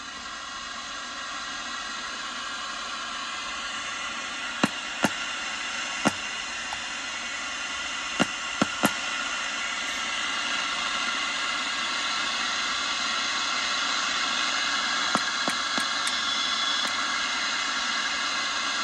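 Static hiss from the loudspeaker of a Rycom VLF tube radio receiver, growing steadily louder, with scattered sharp clicks.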